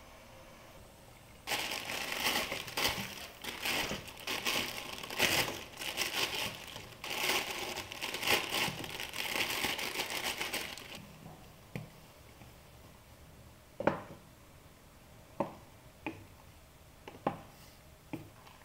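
Plastic instant-noodle wrappers crinkling and tearing as packets are opened and emptied, for about nine seconds. Then about six separate sharp knocks, a spatula striking the steel pot as the noodles are stirred.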